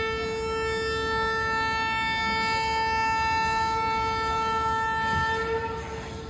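Indian Railways locomotive horn sounding one long, steady blast of about six seconds as the departure signal, trailing off near the end over a low rumble.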